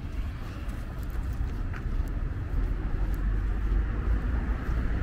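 City street traffic heard as a steady wash of car noise, with a low rumble that grows louder about halfway through.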